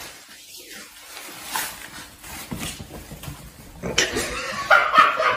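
Thin plastic bag rustling faintly over a Savannah cat's head as it walks. About four seconds in comes louder, busier noise with short pitched calls.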